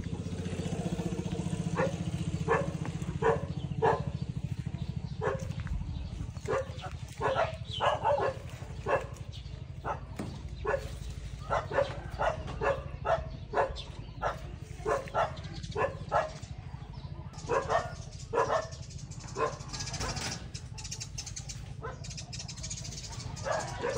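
A dog barking again and again in short, single barks, irregularly spaced, over a steady low hum.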